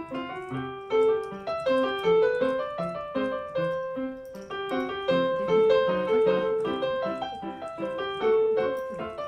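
Piano music: a melody of single notes over lower accompanying notes, a new note about every half second.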